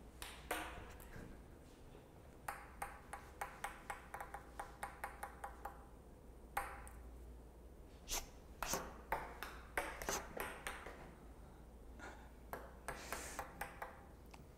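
A small handheld pink toy sounding in quick runs of short, high pitched notes, several a second, with pauses between the runs.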